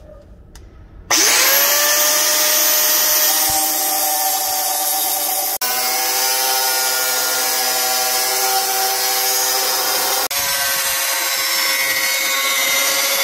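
Angle grinder with a thin cut-off disc spinning up about a second in, then cutting through a steel circular saw blade: a loud, steady high whine of several tones over a hissing grind. It drops out very briefly twice.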